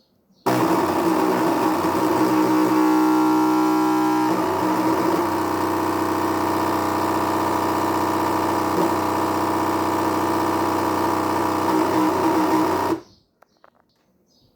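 Anycubic ACE Pro filament feeder's motor and gears running with a steady grinding whir, failing to take in filament. It starts abruptly and cuts off suddenly after about twelve seconds.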